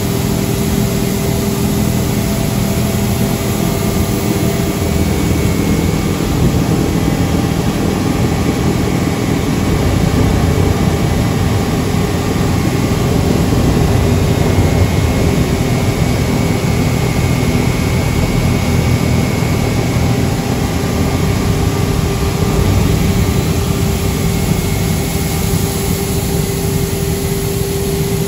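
A 3-in-1 shredder-type plastic film recycling and pelletizing machine running steadily, with a loud, even machine drone and a constant hum through it.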